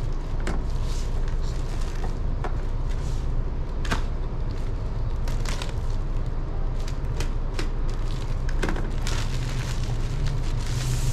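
Plastic courier bag being handled and opened by hand: crinkling and rustling with sharp crackles, over a steady low rumble.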